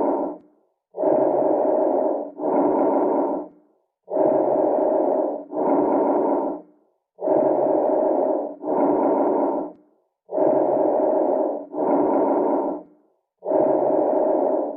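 Recorded stridor breath sounds: a harsh, steady-pitched sound coming in pairs of bursts, one pair per breath, about every three seconds with a gap between breaths. Stridor is the sign of a narrowed airway.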